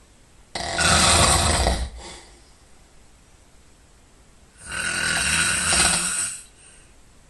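A sleeping man snoring loudly: two long snores about four seconds apart, each lasting well over a second, the first with a deeper rumble.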